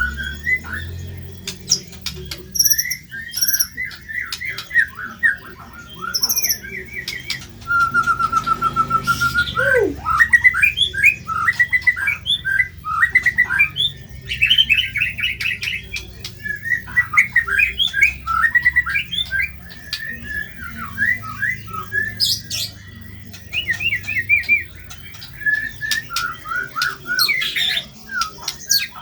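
White-rumped shama (murai batu) singing harsh, chattering song: fast runs of short repeated notes, broken by one held, slightly trilled whistle about eight seconds in and a few very high short pips.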